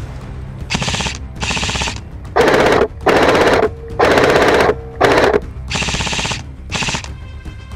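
Airsoft rifles firing full-auto in short bursts of rapid shots. Two bursts come in the first two seconds, four much louder ones come from about two and a half to five seconds in, and two more follow near the end.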